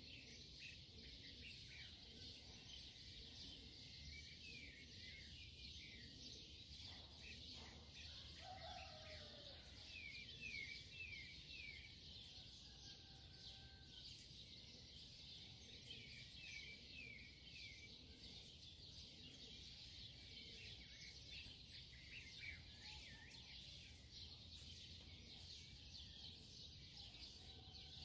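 Faint birds chirping in runs of short quick notes, with a few lower calls, over a steady high hiss.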